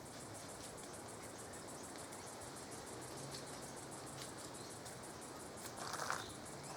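Insects chirping in a fast, even pulse over a steady outdoor hiss, with a short noisy sound about six seconds in.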